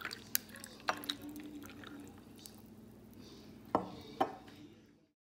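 Sake poured from a bottle over ice cubes in a glass: a faint liquid trickle with several sharp clicks of ice cracking and knocking against the glass, the loudest two near the end. The sound cuts off suddenly just before the end.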